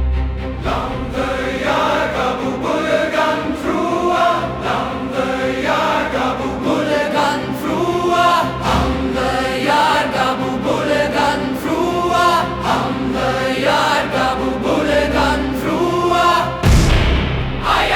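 Dark orchestral music with a choir chanting over sustained low drones, the sung phrases rising and falling in a repeating pattern; a deep hit swells in near the end.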